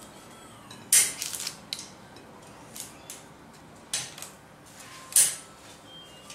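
Baked buns and hands on a glass cake stand: a few sharp clinks and taps. The loudest come about a second in and again near the end.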